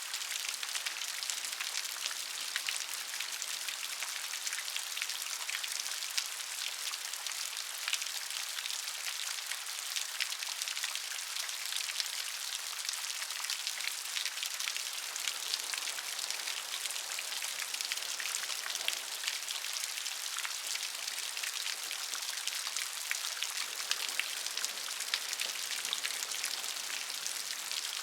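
Steady rain with many close raindrops pattering, a dense even hiss of fine drop clicks.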